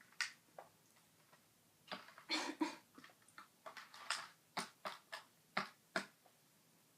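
Irregular small taps and clicks from gingerbread kit pieces being handled and set down on a table, with a brief rustle about two and a half seconds in.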